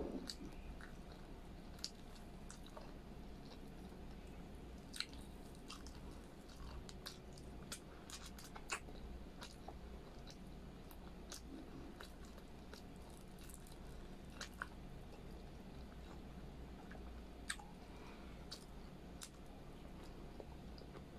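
Close-up chewing and eating noises: wet mouth clicks and smacks while chewing braised pork humba and rice, with a few sharper clicks now and then over a faint low hum.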